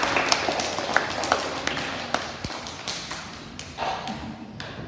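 Audience of schoolchildren clapping, the applause thinning to scattered claps and dying away.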